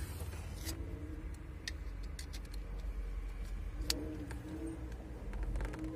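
Scattered light clicks and taps of hands and tools working at a Daewoo Nexia's steering-wheel hub with the horn pad removed, the sharpest click about four seconds in, over a low steady rumble.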